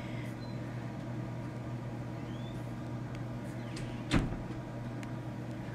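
Quiet room tone with a steady low hum, broken once about four seconds in by a single short tap.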